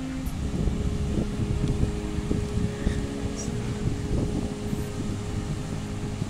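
Wind buffeting the microphone, with a steady hum running underneath.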